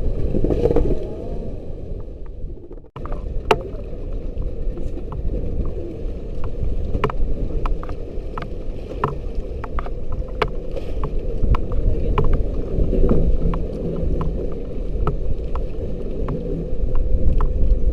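Steady wind and water rumble with a faint constant hum, broken by a sudden cut about three seconds in, then a string of sharp, irregular clicks roughly once a second.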